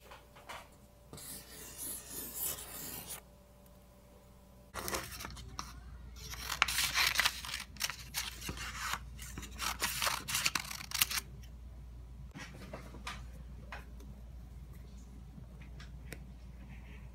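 Scissors cutting a sheet of paper in a run of rapid snips. Before the cutting there is a short burst of paper rustling, and near the end a faint sound of a highlighter stroking across notebook paper.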